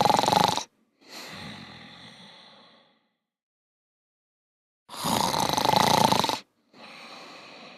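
A person snoring through two breaths, about five seconds apart. Each loud snore is followed by a quieter breath that fades out.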